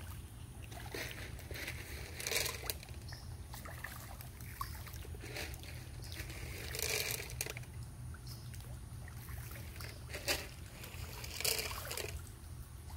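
Small splashes and trickling in shallow muddy water where small fish are breaking the surface, with a few louder splashes about two, seven, ten and eleven and a half seconds in, over a steady low rumble.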